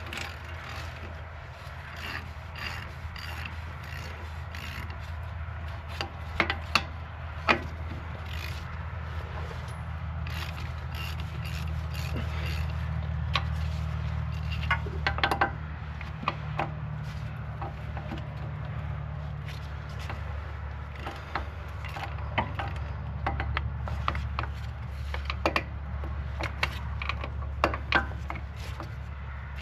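Wrench work on the 13/16 nuts that hold a 2008 Ford F-250's front wheel hub to the axle assembly: scattered clicks and knocks of the socket and ratchet as the nuts are broken free, over a steady low hum.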